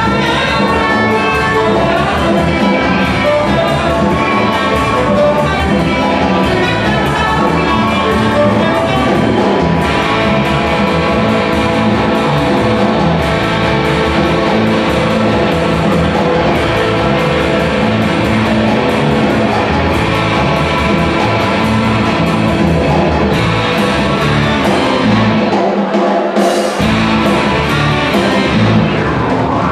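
Live band playing an instrumental number: saxophone lead over keyboards, electric guitar, bass and drum kit. Near the end the bass and drums drop out for about a second before coming back in.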